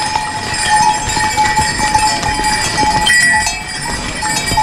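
Neck bells on a line of passing trail horses jangling unevenly, many small clinks overlapping.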